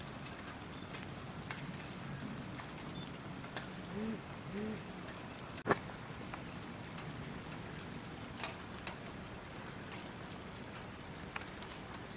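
Steady light rain with scattered sharp drop ticks. About four seconds in come two short rising-and-falling calls, and a single sharp click follows just after.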